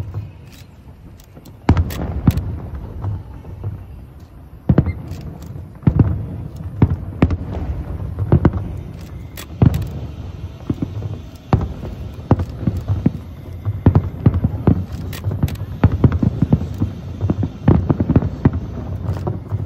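Aerial fireworks shells bursting in an irregular barrage: repeated sharp booms, each trailing off in a low rumble. The bursts come thicker and closer together in the last few seconds.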